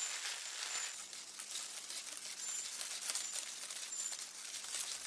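Quiet, steady crackling rustle of a mass of southern wood ants swarming over the pine-needle thatch of their nest and a captured beetle.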